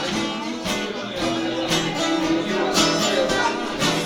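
Live acoustic band music led by a strummed guitar.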